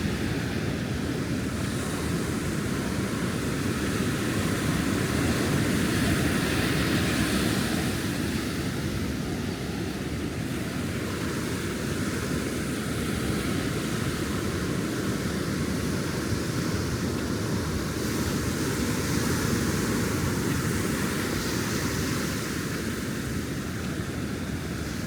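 Ocean surf breaking and washing up a sandy beach, a continuous rush that swells twice, about a quarter of the way in and again later.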